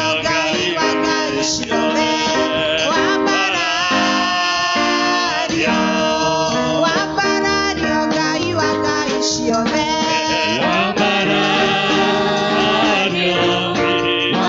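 Live gospel praise-and-worship song in Kikuyu: a woman sings the lead into a microphone, with backing singers, bass guitar and keyboard.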